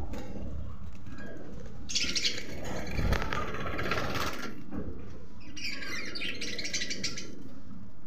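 Budgerigars chattering in a fast, scratchy warble, two bouts of a couple of seconds each, about two seconds in and again near six seconds, over a low steady rumble.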